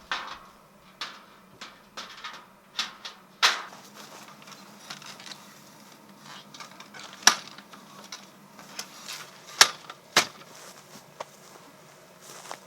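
Irregular clicks, knocks and light clatter of objects being handled and set down, with a few sharper knocks scattered through, over a faint steady hum.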